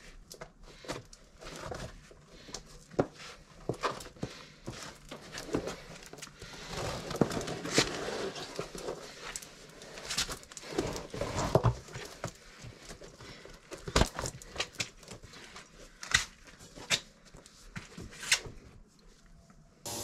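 Tubeless mountain-bike tyre being fitted and pumped up to seat it on the rim: irregular clicks and knocks with bursts of rushing, breath-like air.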